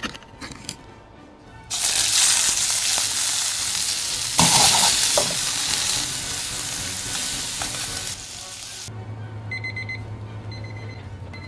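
Squid and shrimp sizzling in a hot wok, starting about two seconds in, getting louder around four seconds and cutting off sharply near nine seconds. A digital kitchen timer then beeps in short repeated bursts.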